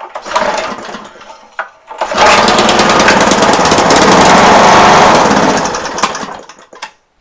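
A 3.5 hp flathead Briggs & Stratton single-cylinder engine is cranked by a pull on its recoil starter. It fires and runs loudly for about four seconds, then winds down to a stop near the end. The start shows the new pull cord and recoil working, though the engine itself still needs more work.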